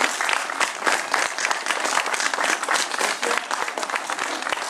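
Audience applauding: dense, even hand clapping that slowly dies down.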